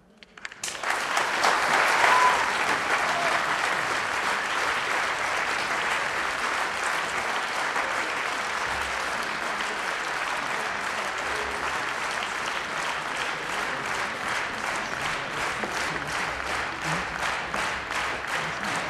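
Audience applauding, breaking out about half a second in and peaking soon after, then settling into steady applause that turns into rhythmic clapping in unison over the last several seconds.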